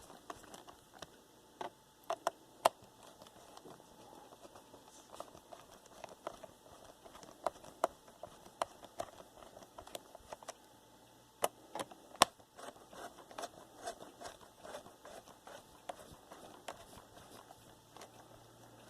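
Plastic laptop case being handled: light scattered clicks and taps, with a few sharper clicks about two seconds in and again a little past the middle.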